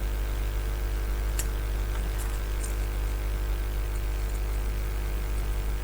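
Steady hum and hiss of a hot air rework station heating the phone's board, with a few faint clicks about a second and a half to two and a half seconds in.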